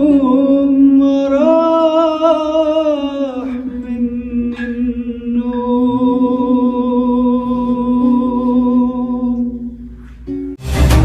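A young male singer holding long drawn-out sung notes with a wavering vibrato, tarab style, on the tail of a phrase. Just after ten seconds the voice dies away and loud music bursts in.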